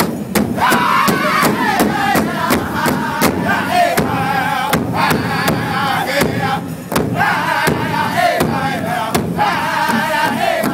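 Powwow drum group singing together in high phrases that fall in pitch, over a steady drumbeat of about three beats a second.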